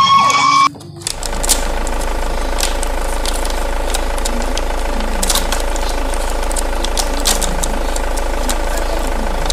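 Electronic engine-idling sound effect from a battery-powered toy truck: a steady, even hum that starts about a second in, just after a siren effect cuts off. Scattered clicks and crackles from plastic packaging being handled run over it.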